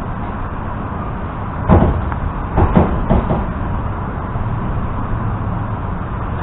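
EP2D electric train running, with a steady low rumble of its running gear. About two seconds in, the wheels give a sharp clack and then a quick run of clacks as they cross track joints, and another pair of clacks comes near the end.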